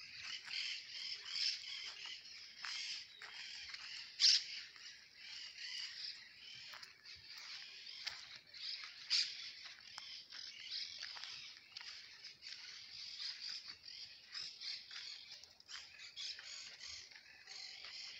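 Many birds chirping at once in a dense, unbroken chorus, with two louder, sharper calls standing out about four and nine seconds in.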